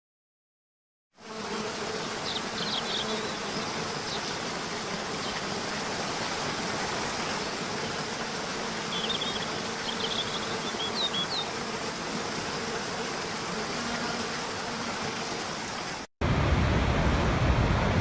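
Steady rush of a waterfall pouring over rocks, starting about a second in, with a faint steady hum and a few short high chirps. Near the end it cuts to a louder, deeper roar of a much larger waterfall.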